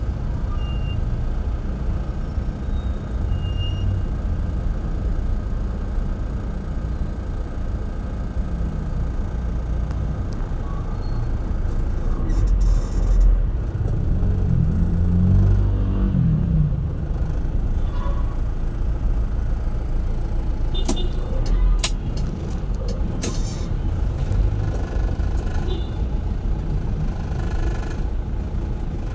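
Steady low rumble of idling and creeping traffic engines heard from inside a car. About halfway through, a nearby engine rises and falls in pitch, and a few sharp clicks come later.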